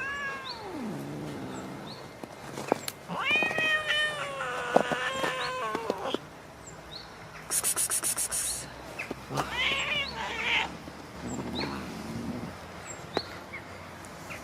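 Cats yowling: about four long, wavering, drawn-out calls, the longest lasting nearly three seconds. A brief rapid rattle comes about halfway through.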